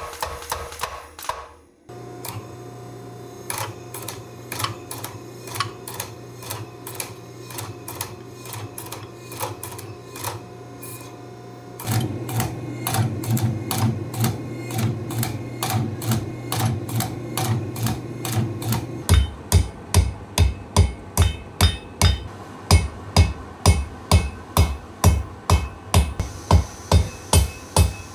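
Red-hot leaf-spring steel being forged. The dies of a power hammer strike the glowing bar in a steady rapid rhythm over a low motor hum. About two-thirds of the way through, heavier, louder hammer blows ring on the anvil, about two or three a second.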